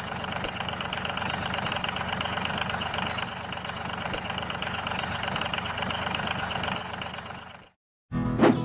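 An engine running steadily with a fast, even pulse; it fades and cuts off about three-quarters of a second before the end.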